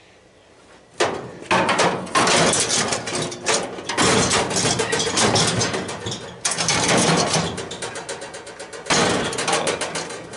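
Sheet-metal housing panels being wrenched and bent off by hand: a dense run of rattling, scraping and clanking metal that starts about a second in, with two short breaks.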